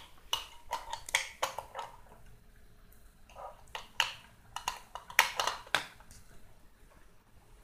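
Irregular small clicks and taps from AA batteries being pressed into a toy robot kit's plastic battery holder and the robot being handled on a wooden floor, in scattered bunches with short pauses between.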